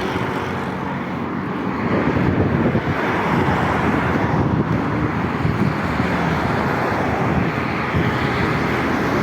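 Steady road and traffic noise from a vehicle moving along a city street.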